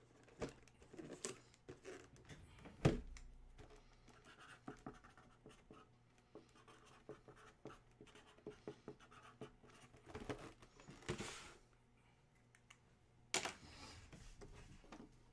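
Faint handling noises close to the microphone: scattered light scratches and clicks, with a few short rustling swishes about ten and thirteen seconds in.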